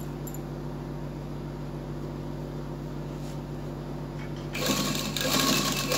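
Electric sewing machine: a steady electric hum, then about four and a half seconds in the machine starts stitching with a loud, fast whirr.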